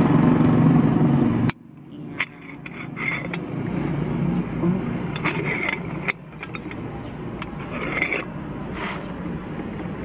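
A steady low motor hum cuts off abruptly about a second and a half in. After it come quiet light clicks and scrapes of a moka pot's metal parts being opened and handled.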